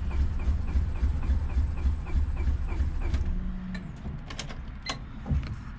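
Starter motor cranking the 2000 Honda Civic's turbocharged D-series engine at about four to five turns a second without it catching. The cranking stops about three seconds in, followed by a few clicks. This is a crank-but-no-start, which the owner suspects is a fuel problem.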